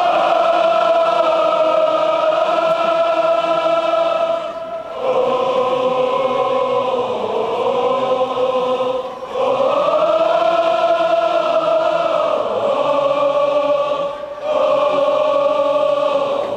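Football supporters singing a slow chant together, holding long notes in phrases of about four to five seconds with short breaks between them.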